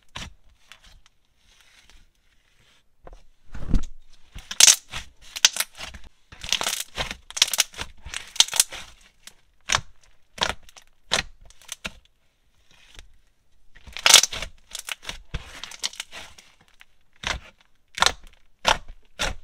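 Thick white slime squished, poked and folded by fingers, giving irregular runs of short crackling pops and squelches, with brief pauses.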